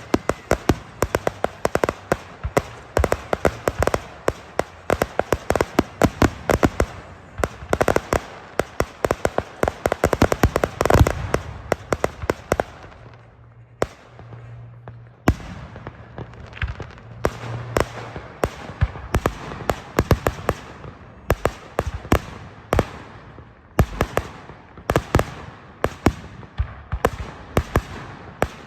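Fireworks crackling: a fast, dense run of sharp pops, many a second. It dies down for a few seconds about halfway through, then starts again.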